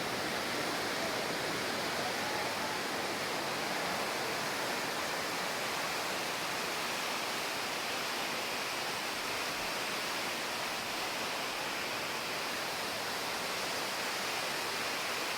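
Steady rushing of water swirling around the Poseidon's Fury water vortex tunnel, an even hiss that does not change.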